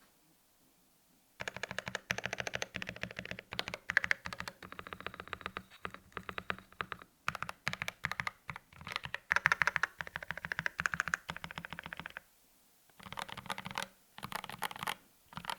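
Rapid typing on a custom mechanical keyboard: GMMK Pro case, lubed Kailh Box Red linear switches, polycarbonate plate and tape-modded PCB, giving a sorta dry sound. The keystrokes start about a second and a half in and break off in two short pauses near the end.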